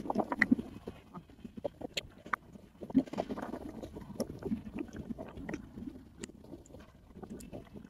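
Soft, irregular crackling and rustling of fingers working through coily hair close to the microphone, with scattered small clicks.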